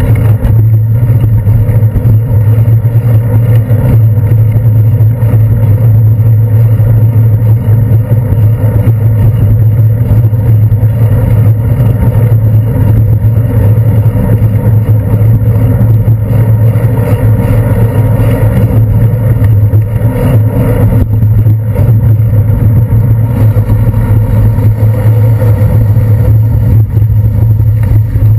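Steady, loud, dull rumble of a bicycle ride picked up by a handlebar-mounted GoPro Hero 2: road and handlebar vibration with wind on the camera, and city traffic under it.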